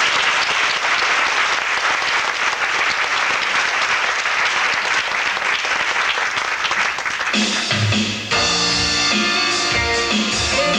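Audience applauding for about seven seconds, then a band with guitar, bass and drums starts playing a song's introduction.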